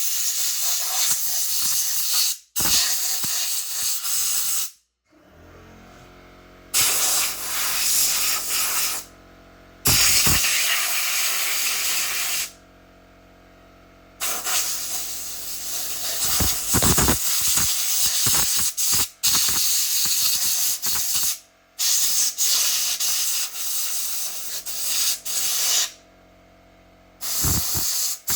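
Hissing spray in repeated bursts, each a few seconds long with short pauses between, during cleaning of a chainsaw.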